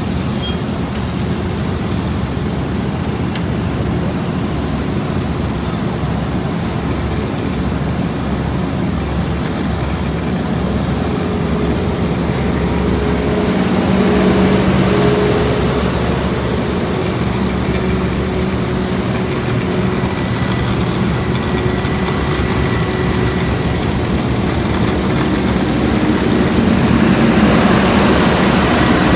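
Heavy diesel engines of asphalt-paving machinery (paver and compaction rollers) running steadily at work, a low continuous engine drone that swells slightly about halfway and again near the end.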